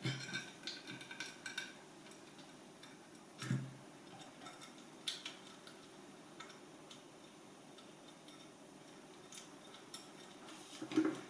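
Faint, scattered metallic clicks and ticks of small screws and a screwdriver being handled as screws are refitted into a Mazzer Mini-e grinder's housing, with a short ringing clink near the start and a duller knock about three and a half seconds in.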